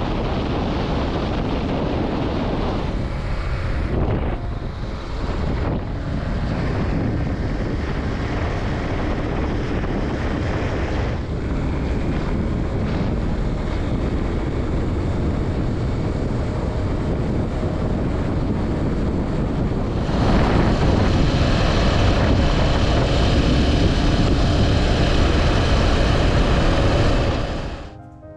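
Wind rushing over the microphone of a motorcycle riding along, a steady roar that gets louder about two-thirds of the way through and cuts off suddenly near the end.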